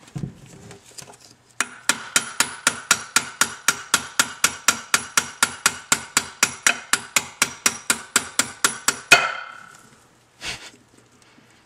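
Hammer tapping a pin out of the shifter shaft of an NV3500 manual transmission, about five quick, even metallic taps a second for some seven seconds. It ends on one harder strike that rings briefly, and a single knock follows about a second later.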